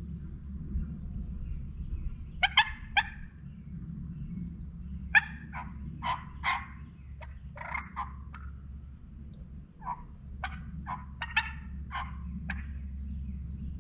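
Turkey cutting calls: three runs of short, sharp, loud clucks in quick irregular series, a couple of seconds apart. A steady low rumble runs underneath.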